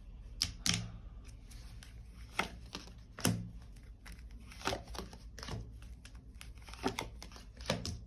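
A tarot deck being shuffled and handled by hand: about eight sharp, irregularly spaced card snaps and flicks with faint papery rustling between.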